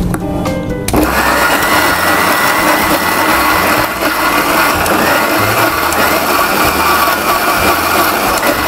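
Electric mixer grinder switched on about a second in and running steadily, grinding beetroot chutney in its small stainless-steel jar.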